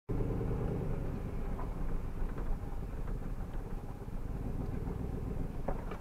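A vehicle's engine runs steadily at low speed while driving along a rough dirt lane, a constant low rumble with a few light rattles.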